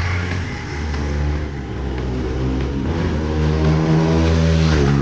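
Bajaj Pulsar NS200's single-cylinder engine revving through an Akrapovic exhaust, its pitch stepping up and down and dropping away near the end.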